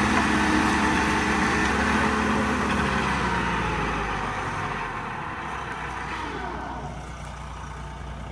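Vermeer SC48TX stump grinder's engine running steadily, the sound gradually fading and its pitched hum dying away after about three seconds.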